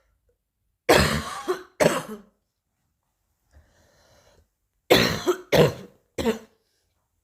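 Coughing in fits: two coughs about a second in, a pause, then three more coughs in quick succession near the end.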